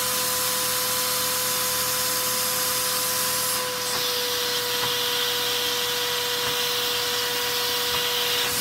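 Vacuum cleaner suction driving a Lego vacuum engine, running steadily with a constant whine and a broad air hiss while the engine stands stalled, locked up. About four seconds in the hiss changes tone.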